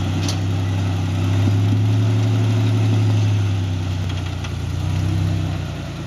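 Off-road 4x4's engine running at low, steady revs while crawling up a rock ledge, swelling slightly under throttle in the middle and easing off again, with a few faint knocks.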